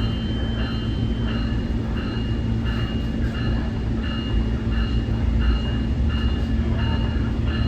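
Nippon Sharyo diesel multiple unit train under way, a steady low rumble of engine and wheels with a constant hum. Over it a high ringing tone repeats about one and a half times a second.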